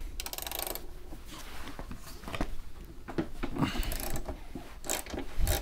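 Ratchet wrench clicking as a nut on a bogie wheel assembly is loosened, with a fast run of clicks in the first second followed by scattered clicks and metal clinks of the tool.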